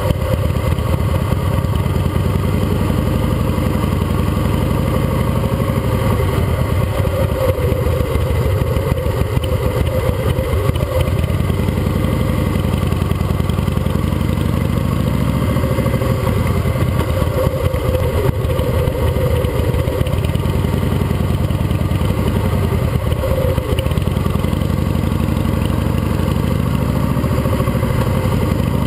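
Custom Harley-Davidson's air-cooled V-twin engine running steadily as the motorcycle rides along, heard close up from the bike.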